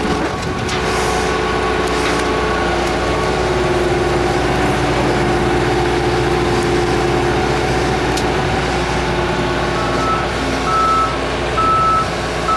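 Combine engine running steadily while the bean head is hooked on. About ten seconds in, a high warning beep starts repeating about twice a second.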